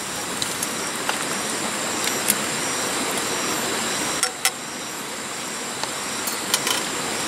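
Wood campfire burning under a simmering pot of soup: a steady hiss with a few sharp crackles and pops, about two seconds in, around four and a half seconds, and again near six and a half seconds.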